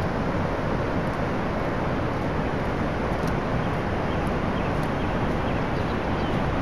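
Steady wind rumbling on the microphone, mixed with the wash of surf breaking along a sandy beach.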